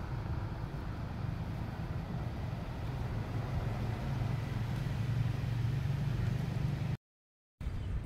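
An unseen engine running steadily: a low hum that rises slightly in pitch and level about midway. The audio cuts out completely for about half a second near the end.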